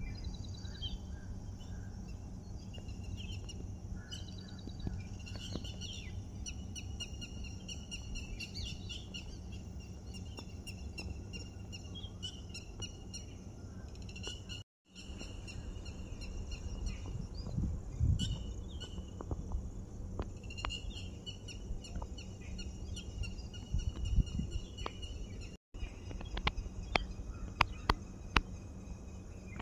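Birds chirping and calling over a low background rumble, with two brief dropouts and a few sharp clicks near the end.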